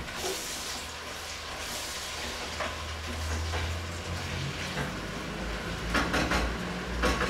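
Food sizzling in a pan on the stove as it is stirred, over a low steady hum, with a couple of light knocks near the end.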